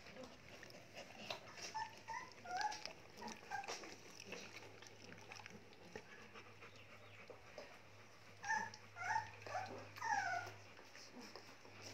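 Rottweiler puppies whimpering: short, high squeaks, some sliding up or down in pitch, in a cluster about two seconds in and again around nine to ten seconds in.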